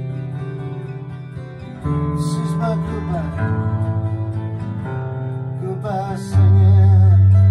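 Acoustic guitar strumming chords that change every second or two, with a louder, low chord ringing out near the end.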